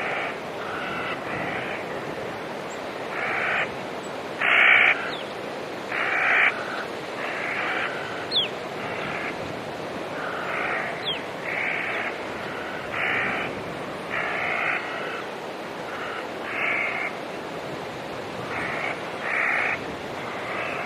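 Crows cawing over and over, a harsh call about every second, over a steady rushing background. Two brief thin whistled notes from a smaller bird come about halfway through.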